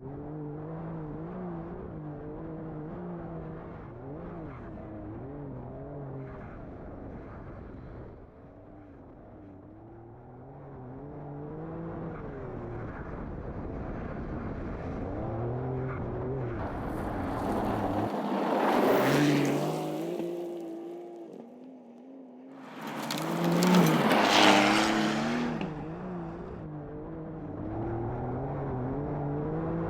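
Porsche 911 Dakar's twin-turbo flat-six running off-road, its note rising and falling as the revs change. Twice, about two-thirds of the way in, a loud rushing noise swells and fades.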